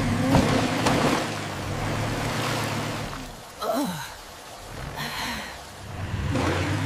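Cartoon car sound effects: a low engine hum under a steady hiss of heavy rain. Just before the middle comes a brief falling groan-like sound.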